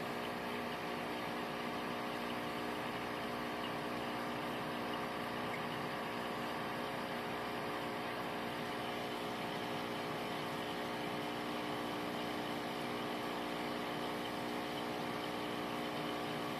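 Steady hum of a small motor: several fixed tones over an even hiss, unchanging throughout.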